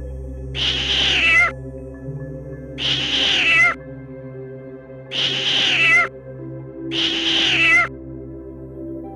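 A kitten meowing four times, each meow just under a second long and dropping in pitch at the end, about two seconds apart, over soft ambient background music.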